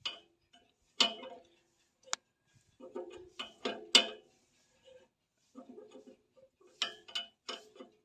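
Irregular metallic clinks and knocks, about a dozen, each ringing briefly, with short silent gaps between them.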